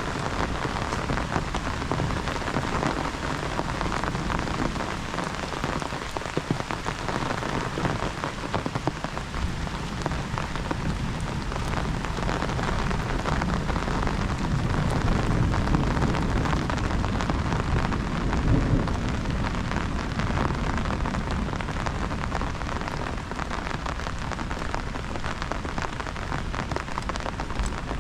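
Heavy rain falling steadily on surfaces, a dense even hiss of drops. Around the middle a low rumble of thunder swells up and then fades back into the rain.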